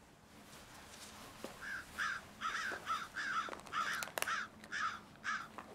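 A crow cawing, about eight short caws in quick succession starting a little under two seconds in, with a few sharp knocks among them.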